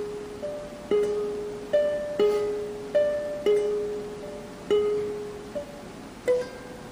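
Classical guitar played solo, slow and sparse: single plucked notes, a lower note returning again and again with higher notes between, each left to ring and fade.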